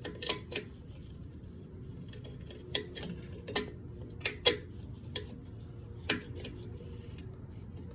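Irregular sharp metallic clicks and clinks of drum brake hardware (shoes, springs and tools) being handled and worked into place, about eight of them with short pauses between.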